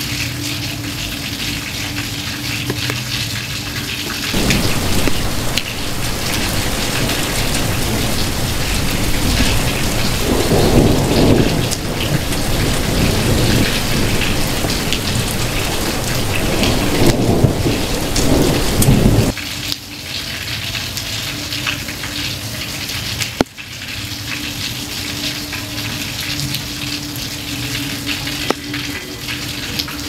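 Steady rain falling, with thunder rolling underneath for about fifteen seconds, swelling twice before it cuts off abruptly past the middle; the rain carries on alone after that.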